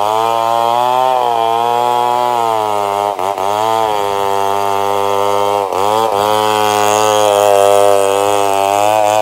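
Stihl 070 chainsaw's big single-cylinder two-stroke engine running at high revs, loud and steady, its pitch sagging briefly twice, about three and six seconds in, and recovering.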